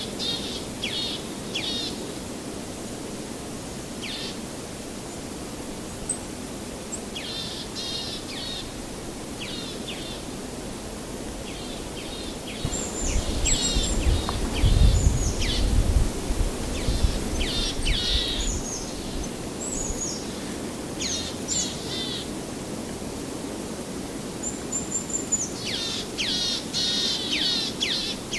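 Small birds chirping and singing in short repeated phrases over a steady background hiss, with a spell of low rumbling noise about halfway through.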